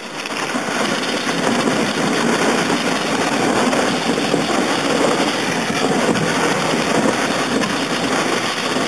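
Plastic kayak hull sliding over packed snow and ice, a steady scraping hiss that builds over the first second and then holds.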